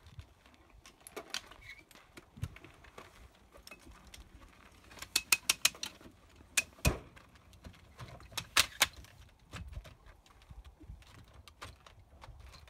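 Rooftop tent and its telescoping aluminium ladder clattering as the tent is unfolded and the ladder pulled out: sharp metallic clicks and rattles, a quick run of clicks about five seconds in, a heavy knock near seven seconds, and two more sharp clicks a little after eight seconds.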